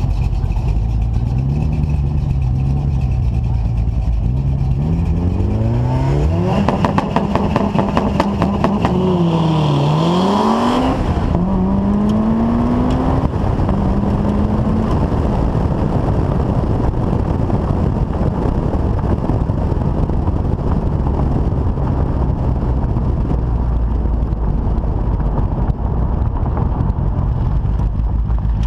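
Turbocharged four-cylinder of a Mitsubishi Lancer Evolution VIII with a 25G turbo on E85, revved on the line, then launched hard about six seconds in. The revs climb and drop through several quick upshifts. Near eleven seconds the engine note falls away as the throttle is lifted, and a steady rush of wind and road noise on the car-mounted microphone takes over.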